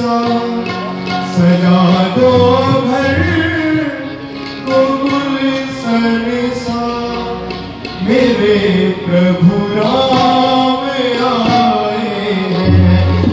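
Harmonium and tabla playing a Hindu devotional bhajan, with a man singing at the microphone.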